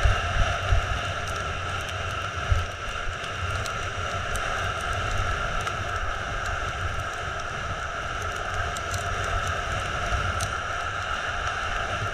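Wind rushing over the microphone and skis hissing over groomed snow on a downhill run, with low buffeting gusts and a few thumps in the first couple of seconds.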